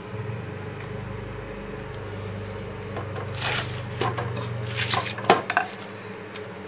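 Metal clinks and knocks from handling a Hitachi compound miter saw, over a low steady hum that stops about five seconds in. The sharpest knock comes just after five seconds.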